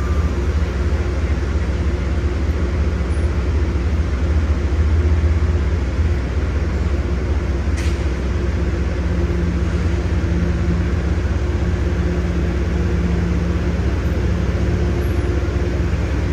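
Train running at a standstill with a steady low rumble and a constant hum that holds level throughout.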